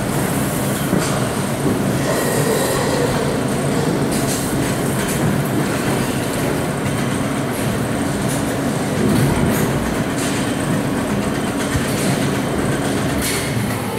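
Loud, steady mechanical rumble and rattle inside a sow barn, with a few sharp metallic clanks along the way.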